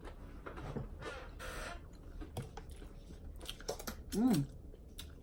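Close-up eating sounds: chewing and biting with small wet mouth clicks. About four seconds in comes one short hum of a voice, the loudest sound here.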